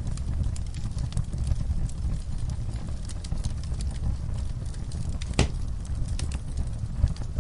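Wood fire burning in a fireplace: a steady low rumble of flames with scattered small crackles, and one louder pop about five seconds in.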